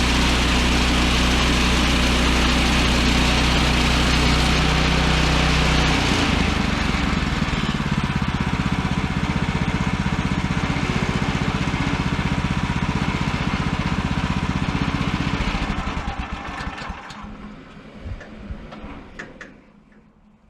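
Woodland Mills HM130MAX band sawmill running, its gas engine under load as the blade cuts a log, with a strong hiss over the engine note. About six seconds in the engine pitch and the hiss change, and near the end the sound fades away.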